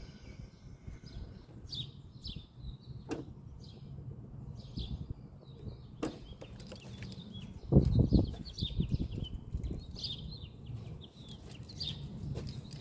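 Birds chirping over a low background rumble, with two sharp clicks and a brief low thump with rustling about eight seconds in, the loudest sound.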